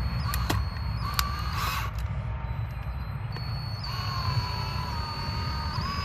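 Black & Decker 18V cordless drill running: a short whine from about half a second in, then a longer steady whine from about four seconds in, its pitch shifting slightly as it goes.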